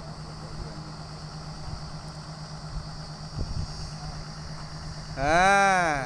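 Engine of a truck-mounted borewell drilling rig running steadily at idle with a low hum. Near the end comes a loud call under a second long that rises and then falls in pitch.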